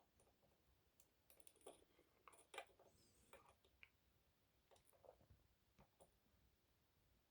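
Faint, scattered clicks of a lock pick working the pins inside an ASSA Twin Exclusive cylinder lock, against near silence; the clearest click comes about two and a half seconds in.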